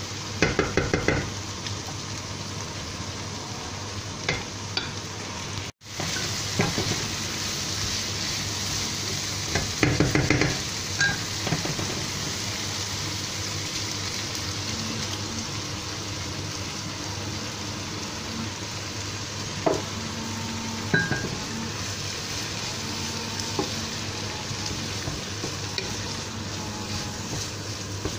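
Onions and peas sizzling in a non-stick frying pan, stirred and scraped with a wooden spatula, the scraping loudest near the start and again about ten seconds in. The sound cuts out for a moment about six seconds in.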